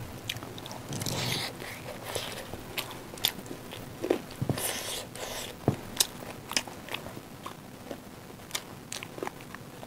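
Close-up eating sounds: chewing and biting, with scattered short sharp clicks and smacks of mouths and fingers working rice and curry.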